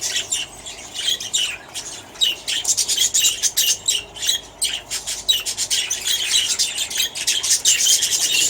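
A flock of budgerigars chattering, with a dense, continuous stream of short chirps and squawks overlapping one another.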